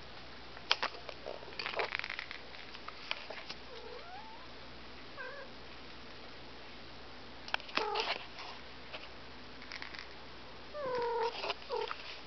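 Siamese kittens meowing: a few short meows, faint at first, with louder calls falling in pitch about eight seconds in and near the end. A few sharp knocks sound in the first three seconds.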